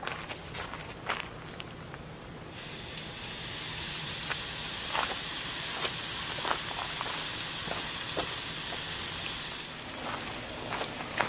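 Raw steak sizzling on the grate of a folding firebox stove over lump charcoal: a steady hiss with scattered pops and crackles. The sizzle starts about two and a half seconds in, after a few light clicks and steps.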